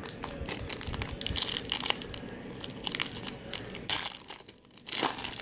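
Foil wrapper of a trading-card pack crinkling and tearing as it is opened by hand, a dense run of sharp crackles with a brief lull near the end.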